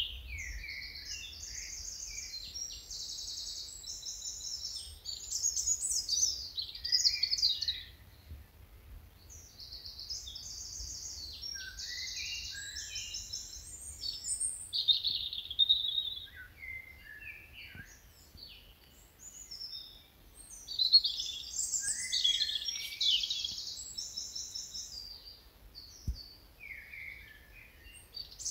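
Songbirds singing in bursts of quick, high trilled phrases, with short pauses between the bursts.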